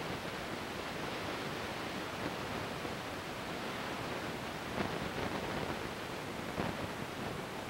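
Steady hiss of a camcorder's own recording noise, with no other sound to pick it up, and a couple of faint clicks about five and six and a half seconds in.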